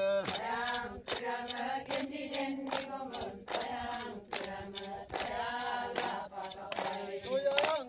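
A group of women singing a repeating chant in unison, clapping their hands together on a steady beat of about two to three claps a second.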